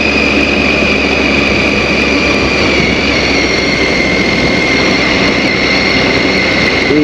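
Adventure motorcycle riding at low speed over a cobblestone road, heard from the rider's position: steady engine and road noise with a high whine that drops slightly in pitch about three seconds in.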